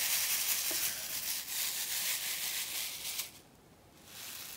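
Square resin diamond-painting drills rattling in a plastic sorting tray as it is shaken back and forth to settle them into the tray's grooves. The rattle is a dense hiss of tiny clicks that stops abruptly about three seconds in, then returns faintly near the end.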